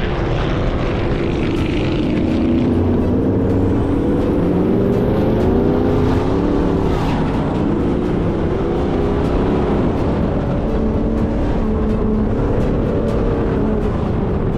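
Sand rail engine running hard, its pitch rising and falling as the throttle goes on and off over the dunes, over a steady low rumble.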